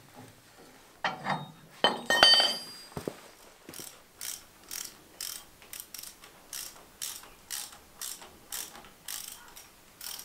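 Mechanical post jack being ratcheted up under a vehicle's front bumper: a few metal clanks with a short ring, then an even clicking rasp about twice a second as the handle is worked, lifting the front end.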